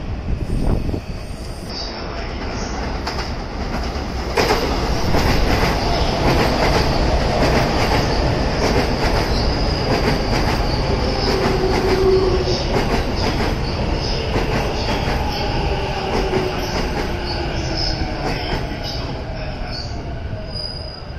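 JR East E233-series electric commuter train pulling in alongside the platform. Its wheels squeal and clatter over the rail joints and points, louder from about four seconds in, while a motor whine falls slowly in pitch as the train slows.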